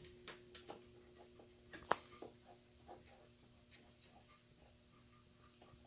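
Faint clicks and light taps of small metal screws and an Allen wrench being handled and set into a zero clearance table insert on a miter saw, with one sharper click about two seconds in, then only occasional faint ticks over a faint steady hum.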